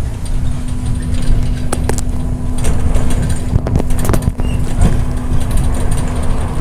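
MAZ-105 city bus heard from inside while driving: a steady low engine and road rumble with a constant hum, and a few sharp clicks and rattles near the middle.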